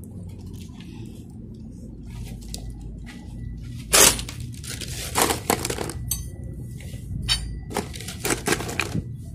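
Clinks and knocks of a small glass-faced solar panel with an aluminium frame being handled and set down against a wall. The loudest knock comes about four seconds in, with a run of lighter clinks near the end.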